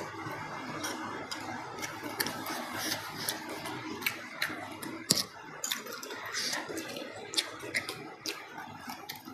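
Close-miked chewing of bakso (Indonesian beef meatballs): irregular wet mouth clicks and smacks, several a second.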